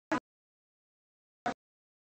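Dead silence broken by two very short blips of sound about a second and a half apart, as in an audio track that has dropped out.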